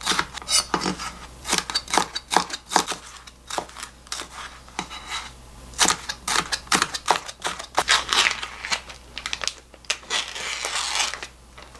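A chef's knife slicing bell pepper into strips on a plastic cutting board: an irregular run of short, sharp knocks. Near the end, scissors cut into a plastic vacuum pack, which crinkles.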